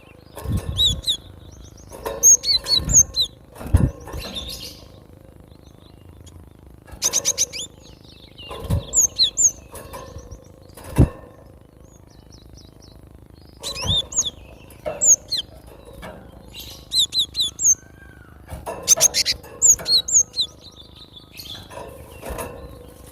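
Cinereous tit (glatik batu) singing in short bursts of quick, high, repeated chirping notes, with pauses of a second or more between phrases. Several dull thumps come among the phrases, the sharpest about eleven seconds in.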